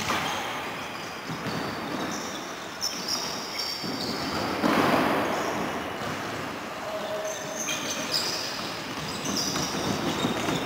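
Futsal being played on a wooden sports-hall floor: sneakers squeaking in short high chirps, ball kicks and bounces knocking, and players' voices, all echoing in a large hall. Play is loudest about halfway through.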